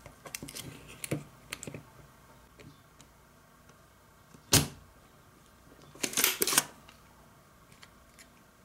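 Desoldering an IC from a carbon monoxide detector's circuit board: small clicks and taps of the board and tools, a single sharp click about halfway through, and a short scratchy burst a couple of seconds later.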